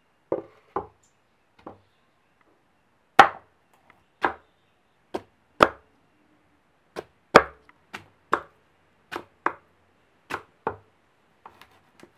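Large kitchen knife chopping through raw cassava (manioc) root onto a wooden cutting board: over a dozen separate sharp chops, one or two a second at an uneven pace.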